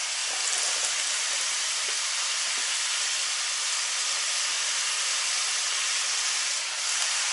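Diced zucchini frying in hot oil in a frying pan: a steady, even sizzle just after the pieces go in.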